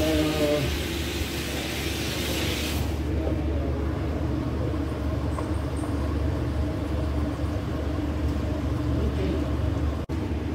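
A steady low mechanical hum, with a hiss over it that cuts off about three seconds in.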